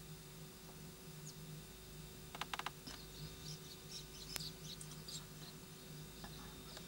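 Faint, high-pitched animal squeaks scattered over a couple of seconds, starting just after a quick run of four sharp clicks about two and a half seconds in, over a steady low hum.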